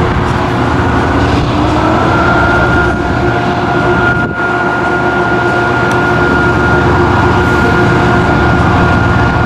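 Amtrak passenger train rolling by on the tracks below: a steady, loud rumble with a thin, steady whine held over it.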